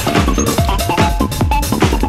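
Electronic dance music with a steady kick drum beat and short synth notes.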